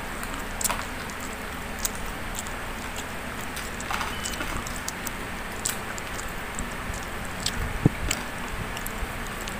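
Close eating sounds of a person chewing, with scattered small clicks and smacks as she eats chicken and rice with her fingers, over a steady low background noise.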